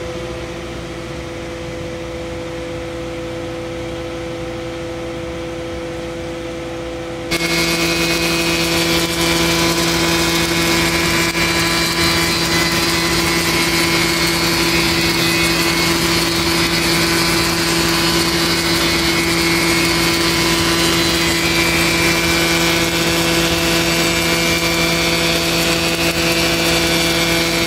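Spindle shaper running, with a power feeder pushing a board past the profile cutter: steady machine running and wood-cutting noise. It is quieter at first and becomes suddenly louder about seven seconds in.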